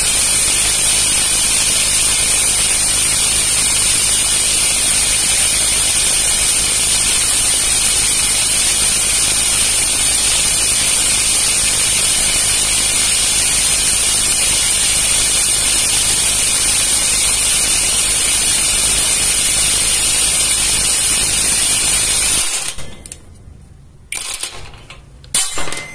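Dagmara D3301 brushless cordless impact wrench hammering without a break for about 22 seconds on a nut torqued to 375 N·m, then stopping abruptly, with a few short rattles after. It is labouring near the limit of its capacity at this torque.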